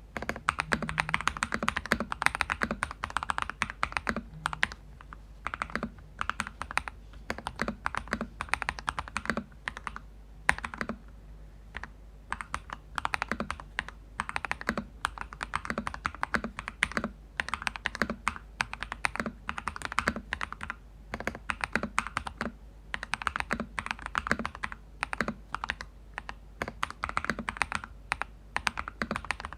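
Typing on a mechanical keyboard with lubed Crystal Red linear switches in a Cheap60 EX case, in uneven bursts of keystrokes with a slight lull about a third of the way through. The keys bottom out firmly with a deep, thocky sound, damped by a plastic sheet in place of foam and double-sided tape under the PC plate.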